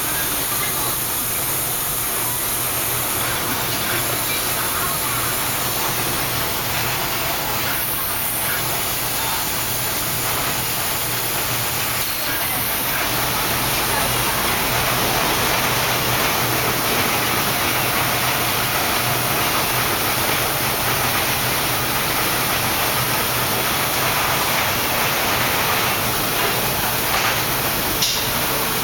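Steady factory-floor machinery noise: a constant hiss with a low hum underneath, level throughout.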